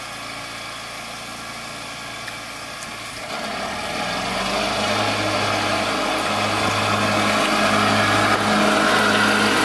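Lawn mower engine running and drawing closer, growing steadily louder from about three seconds in.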